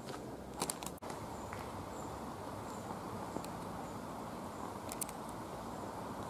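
Outdoor woodland ambience: a few footsteps on a woodland footpath over a steady low hiss, with faint, high, short bird chirps now and then.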